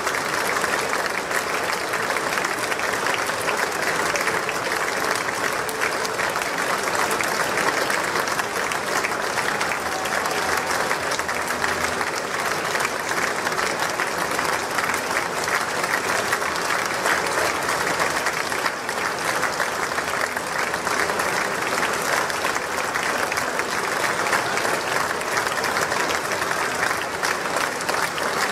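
Large audience clapping steadily in a sustained ovation, a dense unbroken wash of applause.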